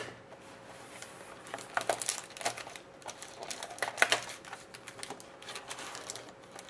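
Irregular clicks, taps and crinkling of cardboard and pack wrappers as sealed trading-card packs are worked out of the tight holes of a box insert, with sharper clicks about two and four seconds in.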